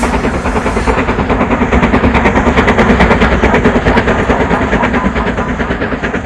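A train running at speed: a rapid, even clatter of beats several times a second, growing louder toward the middle and easing off near the end.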